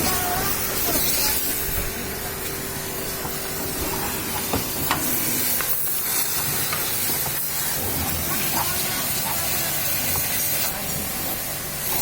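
Water jet spraying with a steady hiss, as in a car wash.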